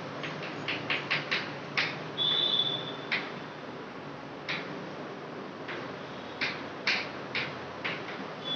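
Chalk writing on a chalkboard: a run of sharp taps and clicks as the letters are struck, with a brief high chalk squeak about two seconds in.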